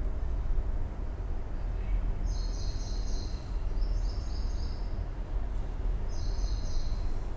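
Whiteboard marker squeaking against the board in three strokes of about a second each, the first two back to back and the third near the end, over a steady low background rumble.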